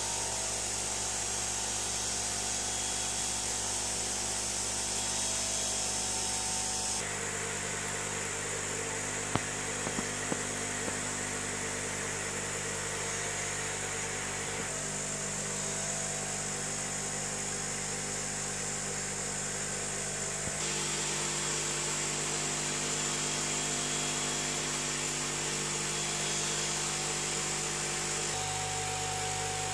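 Steady electric hum and airy hiss of aquarium equipment: air pumps driving bubbling sponge filters. The mix of tones shifts abruptly a few times, with a few faint clicks early on.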